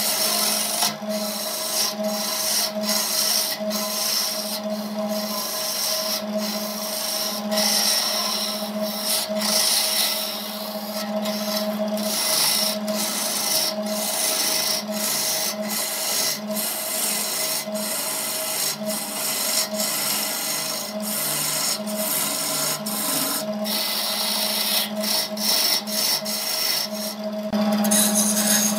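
Wood lathe spinning a vase blank while a hand-held turning chisel cuts into it: a steady motor hum under a rough scraping hiss, with frequent irregular clicks as shavings are torn away.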